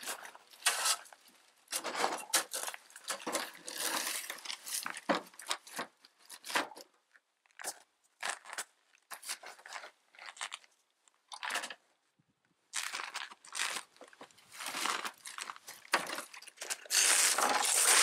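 Irregular crunching and scraping on packed snow and ice as a plastic snow shovel and boots work around a loaded sled. Near the end a louder, steadier rushing noise starts.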